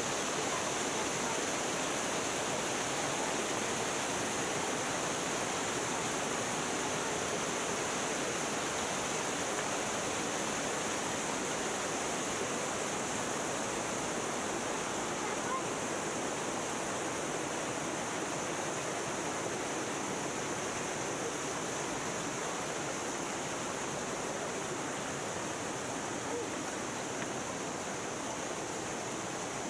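Steady rush of a mountain river's cascades and small waterfalls tumbling over rocks, slowly growing a little fainter.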